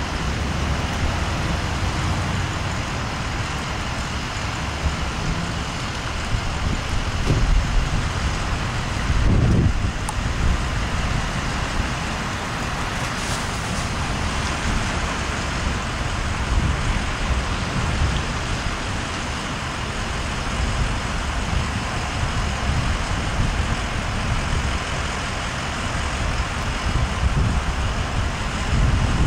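Fire apparatus engines idling on scene: a steady low rumble, with a brief swell about nine seconds in.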